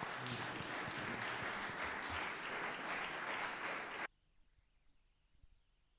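Audience applauding, cut off suddenly about four seconds in.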